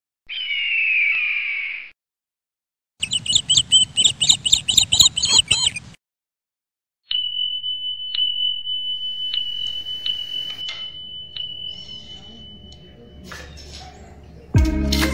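Edited-in intro and subscribe-reminder sound effects: a short swooshing sweep with the logo, then about three seconds of rapid chirpy clicks, then a high bell-like ding held as a steady tone and struck again several times. Music with guitar starts near the end.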